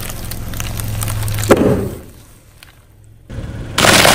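Car tyre crushing a ball of coloured foam beads: the beads crackle under the rolling tyre over a low engine hum, with a loud crunch about a second and a half in as the ball gives way. Near the end a pile of quail eggs begins cracking under the tyre in a loud burst of crunching shells.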